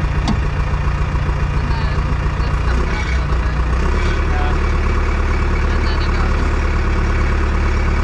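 Bulldozer's diesel engine running under load. Its low note changes about three to four seconds in, then runs steady and slightly louder.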